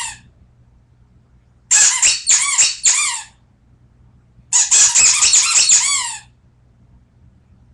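Beer-bottle-shaped squeaky dog toy being squeezed by hand, each squeak rising then falling in pitch: three quick squeaks about two seconds in, then a longer run of squeaks about five seconds in.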